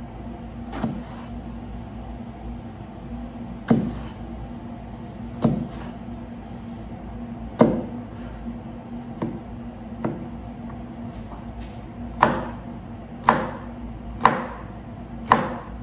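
Kitchen knife slicing eggplant on a wooden cutting board: a few scattered knocks of the blade on the board, then steady chops about once a second near the end. A faint steady hum runs underneath.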